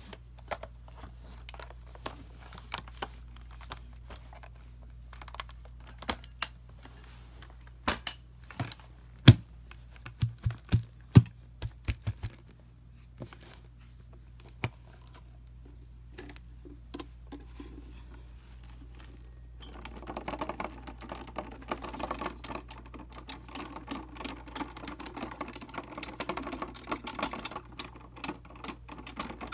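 Upright vacuum cleaner's brushroll crunching debris out of carpet: a steady low motor hum under irregular sharp clicks and crackles, with a run of loud cracks about a third of the way in and a denser, continuous crackling from about two-thirds in.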